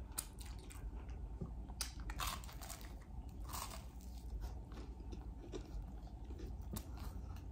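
Close-miked eating sounds: biting into a slice of garlic bread with a light crunch and chewing it, with scattered wet mouth clicks.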